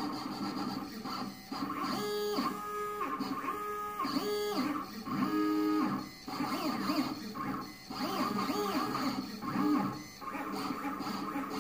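Shapeoko 3 CNC machine's stepper motors whining as the gantry moves a marker over paper. The pitch ramps up, holds and drops with each move, in a string of short moves with brief pauses between them.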